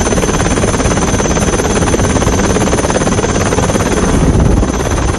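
Helicopter rotor and engine noise, a loud steady fast chopping over a dense roar. It swells slightly near the end.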